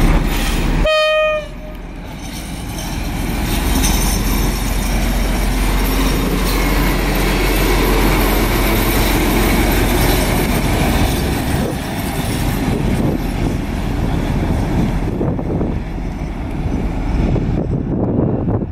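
A short horn blast from the SU46 diesel locomotive about a second in. Then the locomotive's diesel engine runs under load and its wheels roll loudly as it pulls the passenger train close past and away, thinning near the end.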